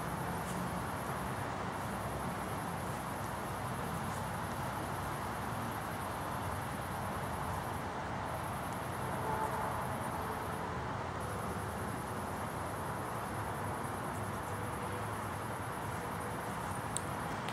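Insects, likely bush crickets, chirring in one unbroken high-pitched band that stops briefly a few times, over a steady low rumble of background noise.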